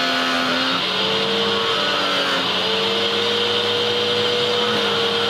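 Pressure washer running on a gravity-fed water supply, spraying soap through a foam cannon: a steady machine hum under a loud hiss of spray. The hum's pitch steps down slightly about a second in and wavers a little after that.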